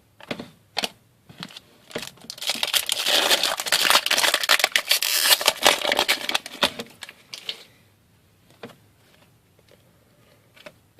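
Foil trading-card pack wrapper crinkling and tearing as it is opened, for about five seconds in the middle, with short clicks of cards being handled before and after.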